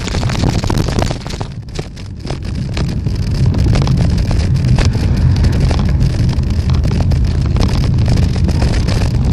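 Wind buffeting the microphone during a bicycle ride: a steady low rumble with many short clicks and knocks, easing briefly about two seconds in.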